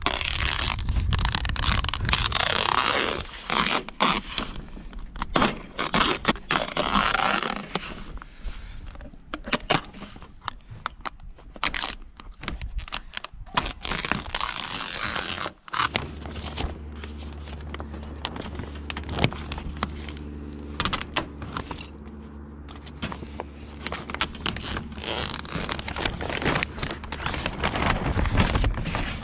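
Utility knife slicing and scraping through greenhouse plastic film along the metal channel, with crackling of the film as it is handled, to cut out the fan's vent opening. About halfway through the sound drops out briefly, and after that a steady low hum runs under the quieter cutting.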